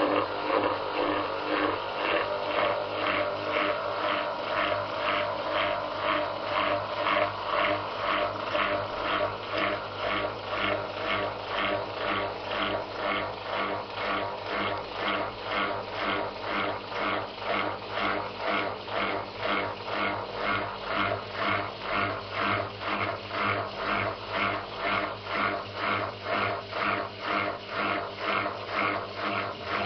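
Samsung WA89V top-loading washing machine running in its rinse cycle, with an even mechanical pulsing about twice a second over a steady low hum.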